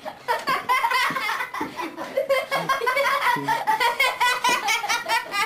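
High-pitched laughter in quick repeated bursts, several a second.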